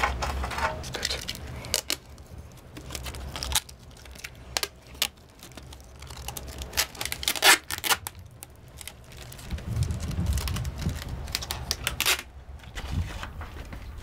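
Irregular clicks, taps and rustling, like gear and rock being handled, with a stretch of low rumble about ten seconds in.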